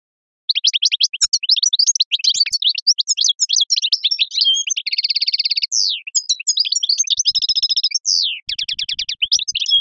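A songbird sings a long, fast song of chattering trills and twitters, with a steady rapid trill about five seconds in.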